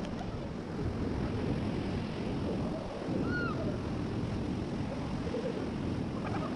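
Rushing river water as a raft runs the rapids, a steady roar with wind buffeting the microphone. A short high cry rises and falls about three seconds in.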